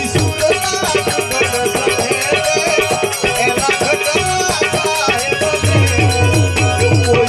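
Instrumental passage of a Gujarati devotional bhajan: a fast, even percussion rhythm with a rattling shaker under a melodic line, the low drum beat coming in strongly about six seconds in.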